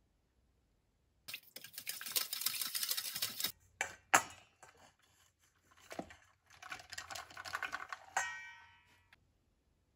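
Spoon and measuring cup clicking and scraping against a stainless steel mixing bowl as batter ingredients are added, with a few sharp taps. Near the end a knock sets the metal bowl ringing for about a second.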